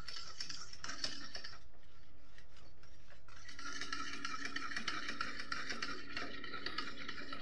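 Wire whisk beating runny cake batter in a steel bowl, a steady continuous run of strokes against the metal.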